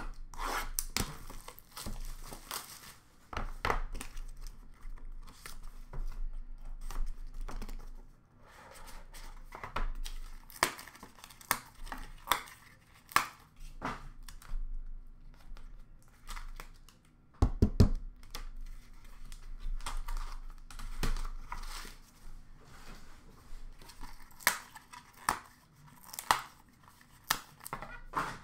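Trading card box and its wrappers being torn open and crinkled by hand, with irregular crackling, rustling and small clicks of cardboard and cards being handled. A few sharp knocks come about two thirds of the way through.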